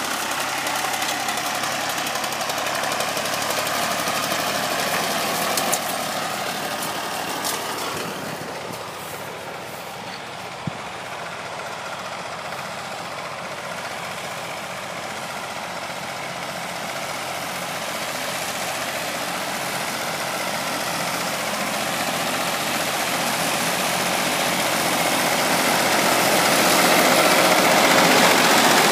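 Tractor engines working a hay field: first a Fordson Super Dexta pulling a hay spreader, then a Massey Ferguson 35X mowing, its engine growing steadily louder as it approaches.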